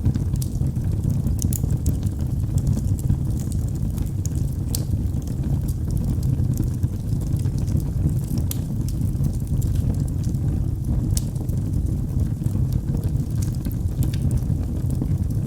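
Wood fire in a fireplace crackling: scattered sharp snaps and pops over a steady low rumble of the burning fire.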